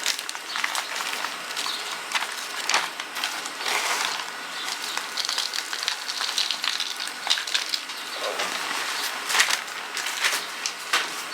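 Loose potting soil being scooped and poured: an uneven rustling with many small scattered crunches and clicks.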